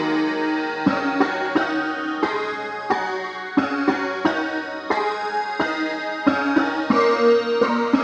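Synclavier II digital synthesizer playing a keyboard-like passage: pitched notes with sharp attacks about two to three times a second, several notes sounding together.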